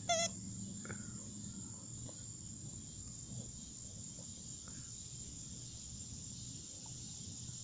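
A squeaker inside a plush dog toy gives a short wavering squeak right at the start as an American Bully chews it. A few faint chewing sounds follow, over a steady high-pitched insect chorus.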